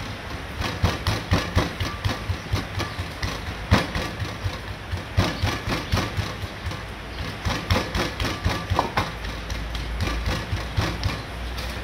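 Stone mortar and pestle pounding garlic, coriander root and white peppercorns into a paste: a steady run of dull thuds, a few strikes a second.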